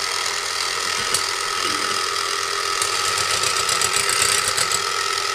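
Electric hand mixer running on low speed, its twin beaters whisking raw egg whites in a stainless-steel pot, with a steady motor whine.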